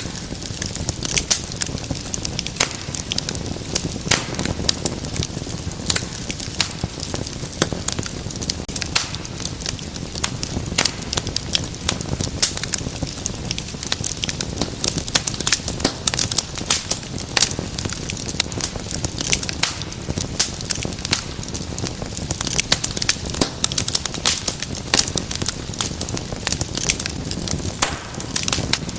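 Wood fire burning in a fireplace: a steady low rush of flames with dense, irregular crackles and pops throughout.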